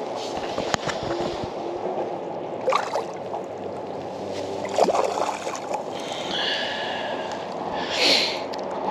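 Water sloshing and splashing at a kayak's side as a small mulloway is held in the water to revive it before release, with several sharp splashes from the fish over steady low background noise.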